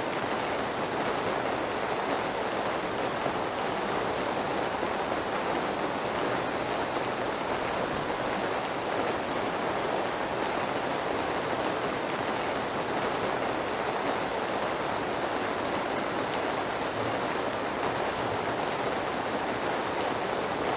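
Steady rain, an even hiss with no breaks or changes in level.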